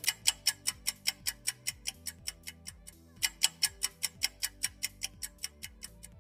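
Clock-ticking sound effect for a time-lapse: rapid, even ticks, about seven a second, that fade, stop briefly about three seconds in, then start again louder and fade once more.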